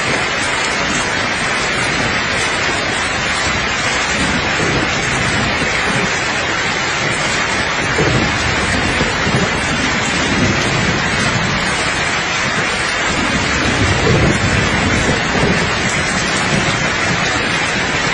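Steady rain falling with a dense, even hiss, and soft low rumbles of distant thunder swelling about eight seconds in and again near the three-quarter mark.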